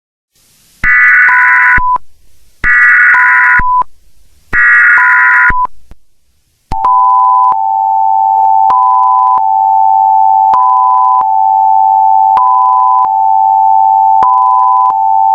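Emergency Alert System header tones: three short bursts of screeching digital data, each followed by a brief beep. Then the long, steady two-tone EAS attention signal, with a higher beep repeating about every two seconds on top.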